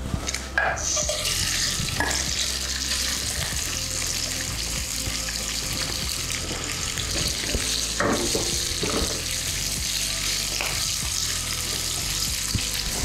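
Raw shell-on prawns land in a hot, lightly oiled frying pan about half a second in and then sizzle steadily as they sear, with a few light knocks.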